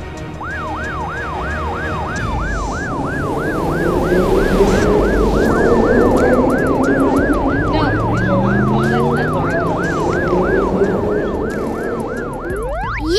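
Ambulance siren sound effect on a fast yelp, its pitch sweeping up and down about three times a second, over a low vehicle rumble.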